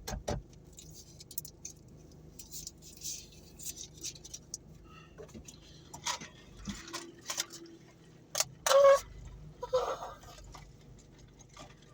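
Takeout food packaging being handled: rustling with scattered clicks and knocks, and two louder bursts of handling noise past the middle.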